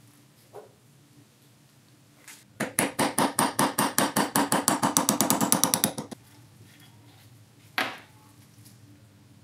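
A rapid run of sharp tool strikes on metal, about ten a second and speeding up, lasting some three and a half seconds. A single knock follows about two seconds later.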